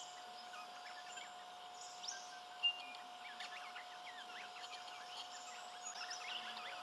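Birds chirping and calling from the surrounding trees, many short whistled notes overlapping, with one louder single note a little over two and a half seconds in, over a faint steady tone.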